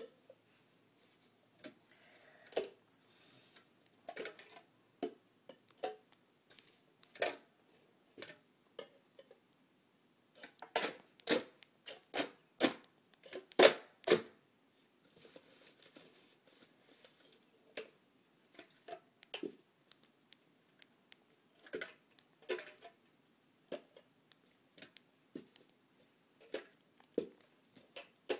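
Plastic cups clacking together as they are stacked up into pyramids and brought back down in speed stacking: irregular light clicks, with a quick run of louder clacks about eleven to fourteen seconds in.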